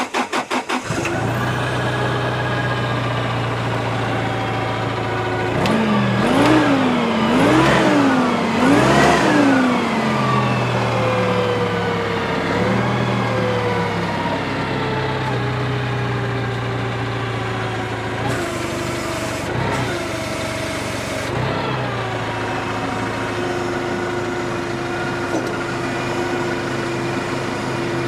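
Toyota forklift's gasoline engine catching right at the start after cranking, then running. It is revved three times, rising and falling in pitch about six to ten seconds in, and then settles into a steady idle that eases slightly lower. It now starts and runs on its replaced ECM and SAS controller, after cranking with no spark before.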